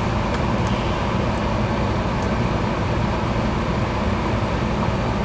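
A steady low hum fills the background, with a few faint light clicks in the first couple of seconds as a small screw is driven back into the plastic case of a lamp remote control.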